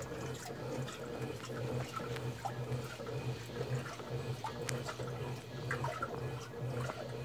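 Electrolux 8.5 kg washing machine at work on its turbo wash cycle: water splashing and trickling in the tub over a steady low hum, with small scattered clicks and drips.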